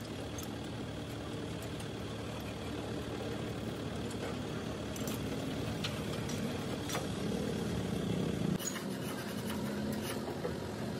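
Truck engine idling steadily, with a few light clicks and knocks over it.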